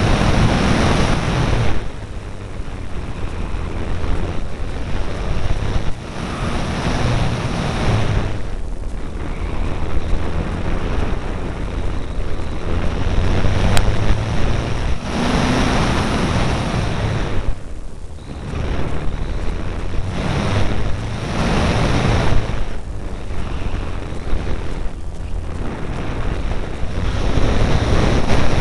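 Airflow rushing over the microphone of a small camera riding on an E-flite Apprentice RC plane in flight, mixed with the plane's electric motor and propeller. The rush swells and eases every few seconds as the plane flies.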